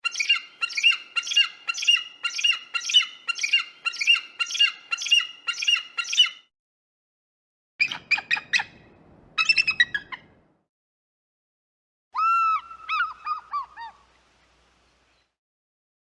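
Eagle calls in three separate takes with silent gaps between them. First comes a run of about fourteen evenly spaced, high, piping notes over six seconds. Then come two quick bursts of rapid chattering notes, and finally a short series of lower notes, each falling in pitch.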